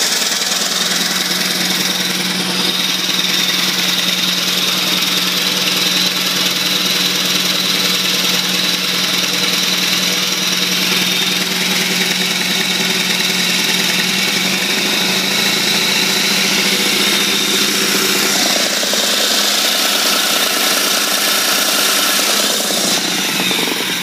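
8 hp single-cylinder four-stroke engine converted to run on steam, running steadily under load as it drives a belt-coupled induction motor as a grid-tied generator, with a steady hiss of steam. A steady low hum fades out about eighteen seconds in.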